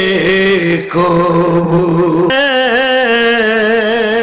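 A man's voice singing a slow, sung lament in the melodic style of Bengali waz preaching. He holds three long, wavering notes, and the pitch steps up about two seconds in.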